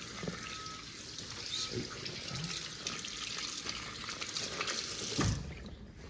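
Water running from a sink tap, a steady hiss that stops with a low thud about five seconds in.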